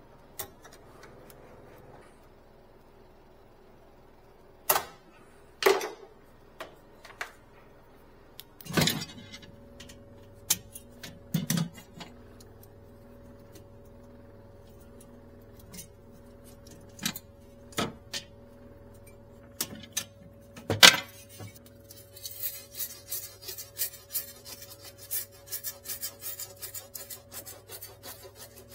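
Scattered sharp clicks and knocks of hands and tools working on a Sub-Zero refrigerator's evaporator tubing and wiring, with a steady low hum coming in about nine seconds in. From about two-thirds of the way through, a quick run of rubbing strokes on the copper refrigerant tubing.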